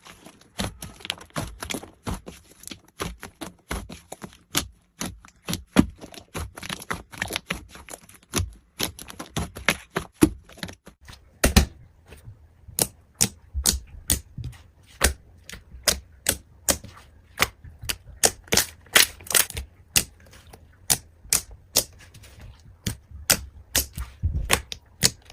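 Slime being pressed and squished by hand, making an irregular run of sharp clicking pops, about two to four a second.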